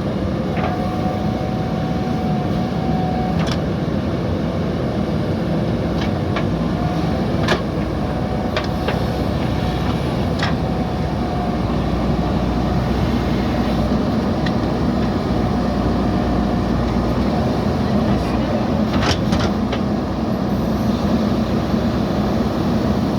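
Backhoe loader's diesel engine running steadily under working load, with sharp knocks now and then.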